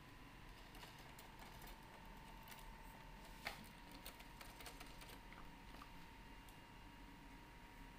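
Near silence with faint, scattered small clicks from parts being handled as a rod end is clipped onto a child's tricycle frame, with one sharper click about three and a half seconds in. A faint steady high tone runs underneath.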